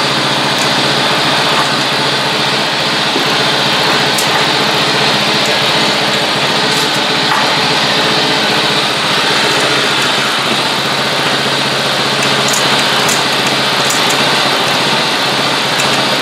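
John Deere JX75 walk-behind mower's small engine running steadily at an even speed, still warming up after a choked cold start.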